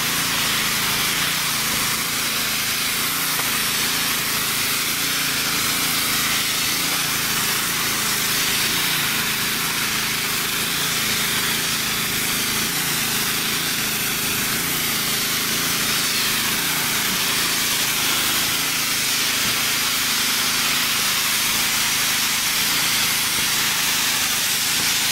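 Airless spray gun spraying roof coating onto corrugated metal: a steady, loud hiss. A machine runs steadily underneath it.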